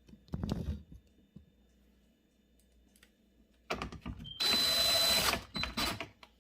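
Power drill-driver driving screws back into a dishwasher door panel: a brief run near the start, then a longer steady run of about two seconds a little after the middle.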